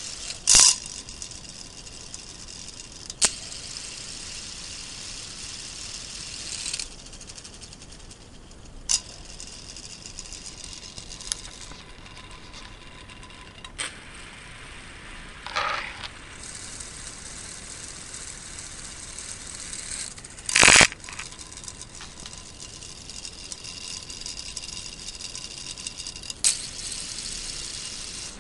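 Small battery-driven electric motor turning a K'nex plastic gear train, running with a steady whir and rattle of meshing gears. The whir goes quieter for a stretch in the middle, and several sharp clicks and knocks cut through it, the loudest near the start and about two-thirds of the way through.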